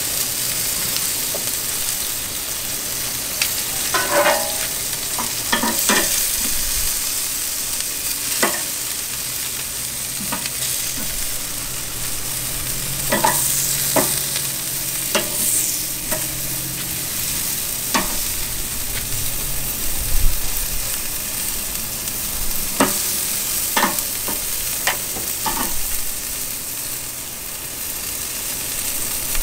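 Chicken drumsticks sizzling steadily on a charcoal grill grate, with scattered sharp pops and clicks through the sizzle.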